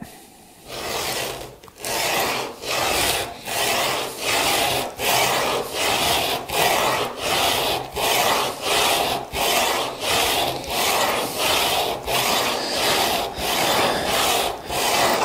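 Steel back of a new wood chisel rubbed back and forth on dry 100-grit sandpaper glued to a flat board. It makes a rasping stroke a little under a second apart as the back is ground flat to remove its high spots.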